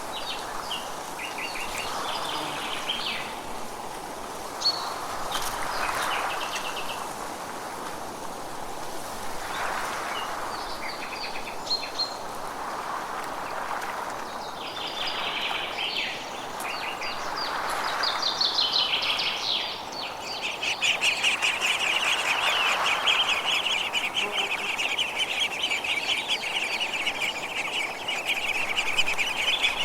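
Forest birds chirping and singing in short repeated phrases, joined about two-thirds of the way through by one bird's continuous rapid high trill. Underneath is a steady rushing background that swells every few seconds.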